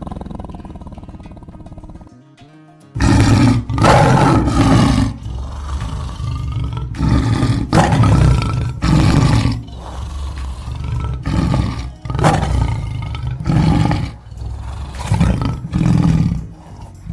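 Tiger roaring over and over: loud roars about a second apart, coming in groups, beginning about three seconds in, over background music.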